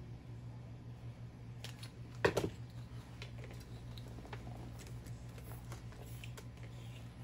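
Scissors set down on a workbench, a brief clatter a little over two seconds in, followed by scattered light clicks of small tools and tubing being handled, over a steady low hum.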